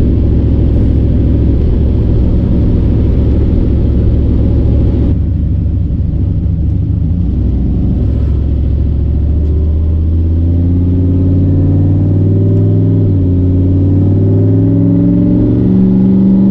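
Turbocharged 6.0 LS V8 heard from inside the car's cabin while driving, a loud steady drone. A higher hiss drops away about five seconds in, and in the second half the engine's pitch climbs slowly as it speeds up.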